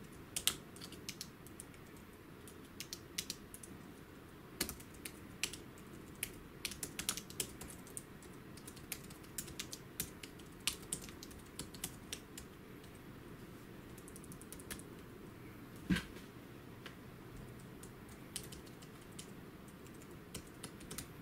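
Typing on a Battop Bluetooth keyboard: irregular bursts of key clicks, thinning out in the second half, with one heavier thump about sixteen seconds in.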